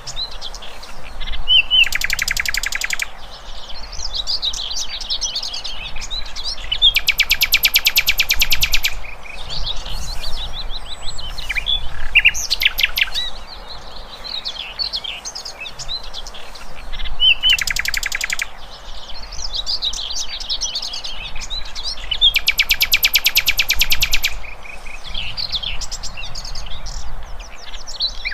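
Songbirds chirping and whistling, with rapid buzzy trills of one to two seconds that come back several times; the same sequence returns about fifteen seconds later.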